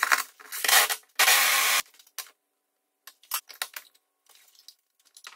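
Cordless drill driving screws into the wall in short runs, the longest and most even about a second and a half in, followed by a series of light clicks and taps.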